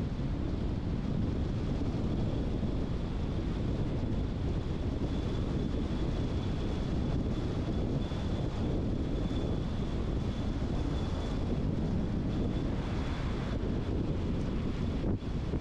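A car being driven at steady speed: continuous road and wind noise, heaviest in the low range, with a faint steady high whine through the middle.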